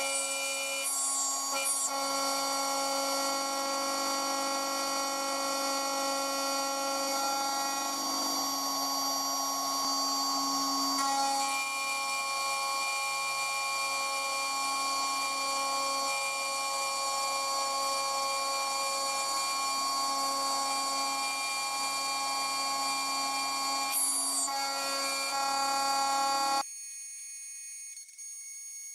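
DIY CNC router spindle milling slots in aluminium plate with an end mill: a steady high whine mixed with cutting noise. Near the end the sound drops abruptly, leaving only a thinner high whine.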